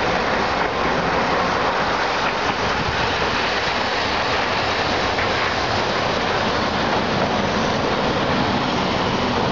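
A Hiroshima Electric Railway streetcar rolling past on street-running track, a steady rumble mixed with city traffic.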